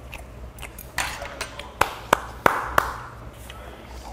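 Glass liquor bottle and small glass clinking and tapping on the table: about five sharp clinks in quick succession, some with a brief ring.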